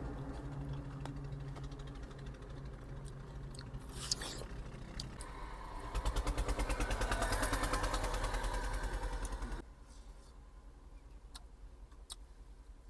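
Truck engine idling, heard from inside the cab: a low steady hum, then about six seconds in a louder, evenly pulsing run of about three and a half seconds that cuts off suddenly.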